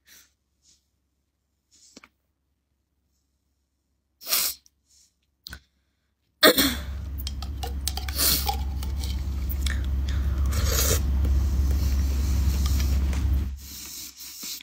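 A few faint clicks, then from about six and a half seconds a loud, rough rubbing noise close to the microphone with a deep rumble underneath. It lasts about seven seconds and stops suddenly.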